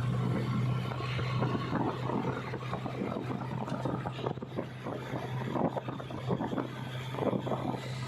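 Heavy diesel machinery engine running at a steady speed with a low hum, while wind buffets the microphone.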